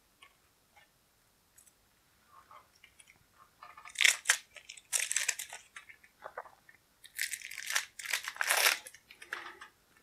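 Clear plastic shrink-wrap crinkling and tearing as it is pulled off a pack of game cards, in a few rustling bursts starting about four seconds in.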